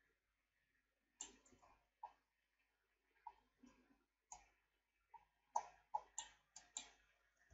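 Faint, irregular clicks of a computer mouse and keyboard, about a dozen, coming in a quicker run near the end.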